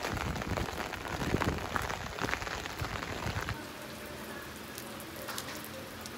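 Rain falling, with many separate drop hits close by. About three and a half seconds in it suddenly turns quieter and softer, with fewer distinct drops.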